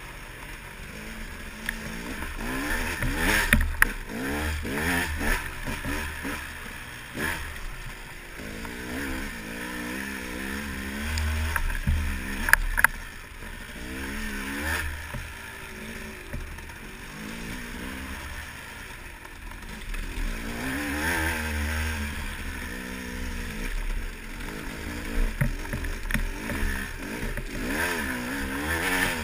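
Dirt bike engine being ridden hard, revving up and down over and over as the throttle opens and closes. A few sharp knocks come through, one about four seconds in and two close together around thirteen seconds.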